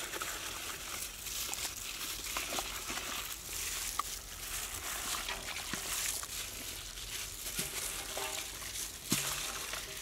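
Wet squelching and sloshing of quail being mixed by hand into a thick curd-and-spice marinade in a large metal pot, with a few sharp knocks, the loudest about nine seconds in.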